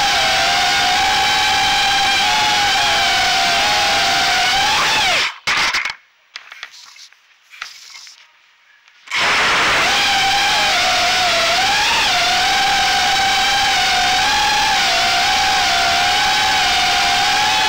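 Armattan Gecko 3 FPV quadcopter's motors and propellers whining, heard from its onboard camera, with the pitch wavering as the throttle shifts. About five seconds in the pitch jumps and the motors cut out, leaving a few much quieter seconds with faint knocks while the quad sits on the floor. About nine seconds in the motors spin back up and it flies on.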